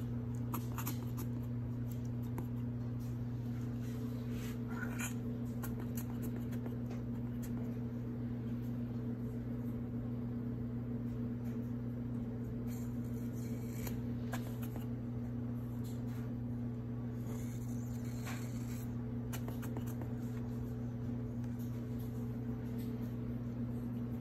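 A steady low electrical hum, with a few faint short squeaks and rustling from a newborn Schnauzer puppy being rubbed in a towel and suctioned with a bulb syringe to clear fluid from its lungs.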